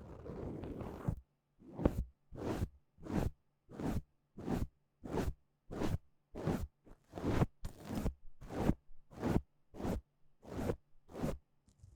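Fluffy ear-cleaning brush (bonten) sweeping in ASMR ear cleaning. A soft rustle lasting about a second comes first, then a run of short, quick brush strokes at roughly two a second.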